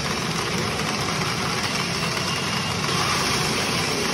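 Steady, loud din of a pachinko parlour: many machines running and steel balls clattering, with no single sound standing out.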